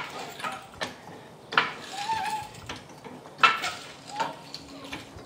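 Hydraulic floor jack being pumped by its long handle to lift a car: metallic clanks and clicks with the strokes, unevenly spaced, with a short squeak about two seconds in.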